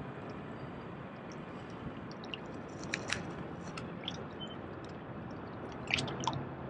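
Small clicks and ticks from a spinning reel and rod being handled during a slow retrieve, over a faint steady hiss. There is a cluster of clicks about three seconds in and another about six seconds in.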